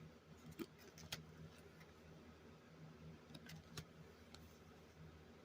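Near silence: a few faint clicks and taps of baseball cards being handled and flipped through by hand, over a faint steady hum.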